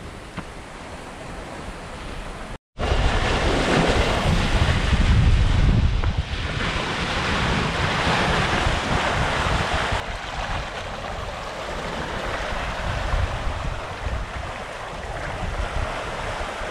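Water rushing and foaming in the bow wave and wake of a Hallberg-Rassy 54 sailing yacht running downwind at about 9.5 knots, with wind buffeting the microphone. A split-second gap about two and a half seconds in, then louder rushing for several seconds, easing somewhat later.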